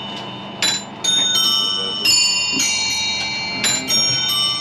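Small bells on a coin-operated bellringers automaton, struck one after another in quick succession, each ringing on and overlapping the next.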